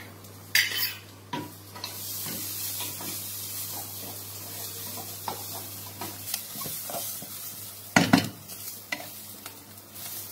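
Chopped green chillies sizzling in hot oil in a non-stick wok, stirred with a spatula that scrapes and clinks against the pan. The sizzle strengthens about two seconds in, and the loudest clank of the spatula on the pan comes about eight seconds in.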